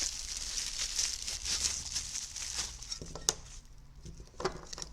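Packaging being handled, crinkling and rustling, with a sharp click about three seconds in.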